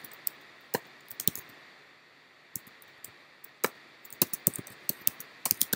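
Keystrokes on a computer keyboard as a path is typed: separate sharp clicks at an uneven pace, sparse at first, with a pause of about a second, then coming faster near the end.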